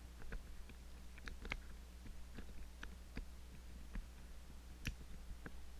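Faint, irregular small clicks and ticks of a lock pick and tension tool working the levers of an Ingersoll 10-lever padlock core, with one sharper click a little before the end.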